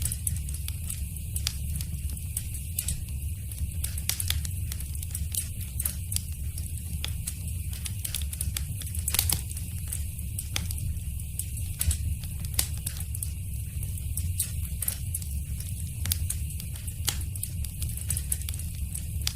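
Wood fire crackling in a fireplace: irregular sharp pops and snaps, a few louder ones, over a steady low rumble of the flames.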